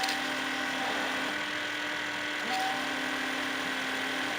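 Windshield washer pump on a Ford Excursion running with a steady buzzing whine as the washer is tested for spray after a hose repair. A second, higher tone comes in briefly twice.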